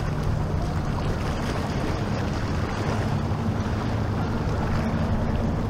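Outboard motor of a small deck boat running steadily as it crosses choppy water, with wind on the microphone and the wash of waves.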